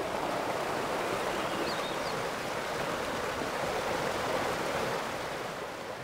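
Water rushing steadily along a stone-lined falaj irrigation channel, a little quieter near the end.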